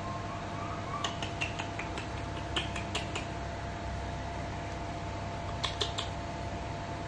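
Light clicks of typing on a smartphone: a quick run of about ten taps, then three more near the end, over a steady room hum.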